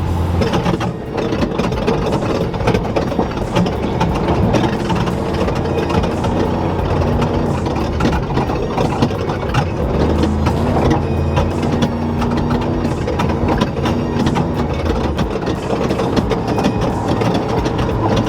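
Classic Ford F100 off-road truck being driven over dirt, heard from inside the cab. Its engine runs steadily under load, with many quick knocks and rattles from the bumps.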